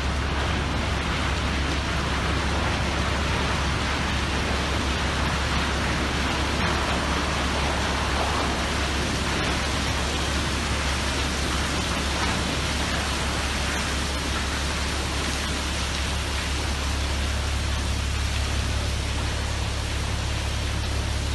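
Steady rushing roar of dust-laden air blowing out of an underground mine's ore-pass draw point, driven by the piston effect of falling ore, with a low hum underneath.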